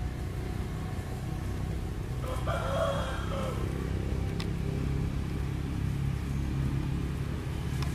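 A rooster crows once, about two and a half seconds in, over a steady low rumble of a running vehicle engine.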